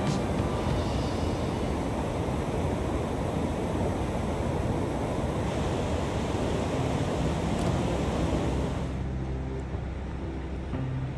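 Water rushing through an open dam spillway gate, a steady dense rush of falling water. About nine seconds in it thins and background music comes in.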